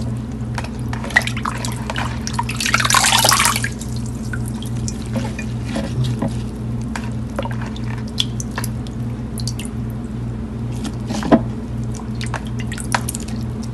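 Hands packing wet, brine-soaked pickled mustard green leaves into a glass jar: scattered wet clicks and drips, with a denser squishing rustle about three seconds in. A steady low hum runs underneath.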